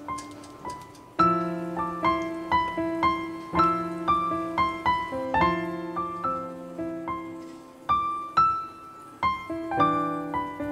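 Background music: a gentle piano melody of single struck notes that ring and fade, with a steady lower note held beneath.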